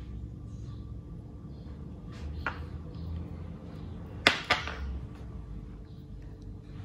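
Low steady background hum with a few sharp clicks: one about two and a half seconds in, and a louder pair in quick succession a little past four seconds.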